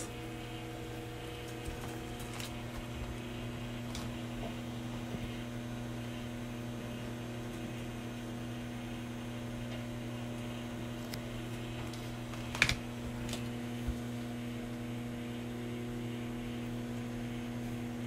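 Hamilton Beach microwave oven running: a steady electrical hum. A few faint clicks, the sharpest about two-thirds of the way in.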